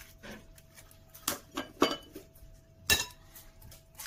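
Sharp clinks and taps as eggs are cracked against a glass mixing bowl and the shells handled over a small ceramic bowl: three clicks, the loudest about two and three seconds in.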